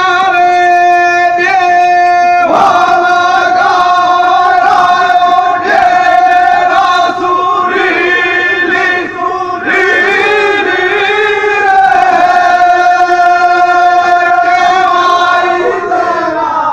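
A man singing or chanting long, held notes into a microphone, loud through loudspeakers, with a crowd around him.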